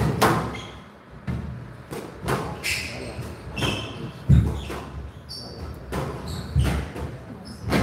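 A squash rally: the hard ball is struck by rackets and smacks off the walls about once a second. Short high squeaks of court shoes on the wooden floor come between the hits.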